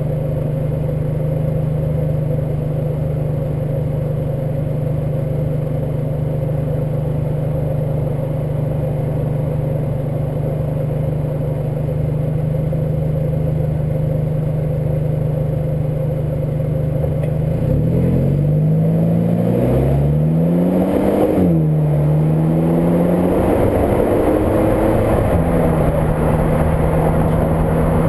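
Mk5 VW Golf GTI's turbocharged 2.0-litre four-cylinder engine running at a steady cruise under heavy wind and road noise. About two-thirds of the way through, the engine pitch dips and rises several times as speed changes, then settles steady again.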